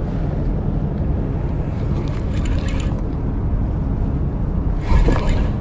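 Steady low rumbling noise with a brief louder knock about five seconds in.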